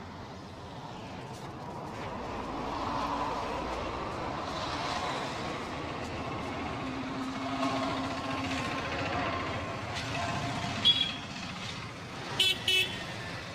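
Street traffic running past, with a short vehicle horn toot about eleven seconds in and two quick toots near the end.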